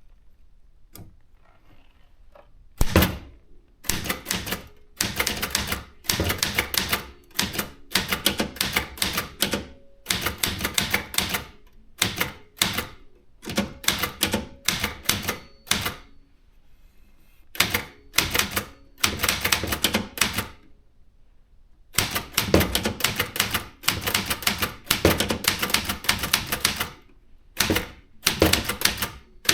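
Brother JP 1 typewriter being typed on: rapid keystrokes in runs of about a second, with short pauses between them. The first few seconds are quiet apart from a few faint clicks, and the typing stops for about a second twice in the second half.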